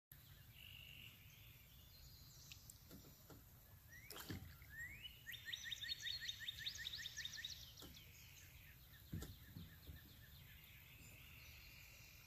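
Faint birdsong over a low steady rumble, with a fast trill of about nine quick rising notes a second lasting a couple of seconds around the middle.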